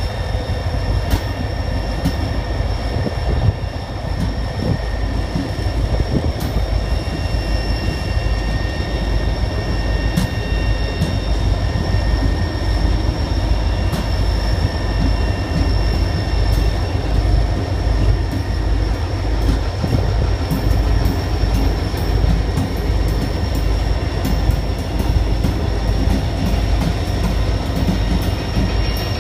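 Two EMD SD40-2 diesel-electric locomotives, each with a turbocharged 16-cylinder two-stroke engine, running as they roll slowly past close by. The engines give a heavy, steady low rumble, with thin, steady high-pitched tones above it. Sharp clicks and knocks from the wheels on the rail come more often in the second half.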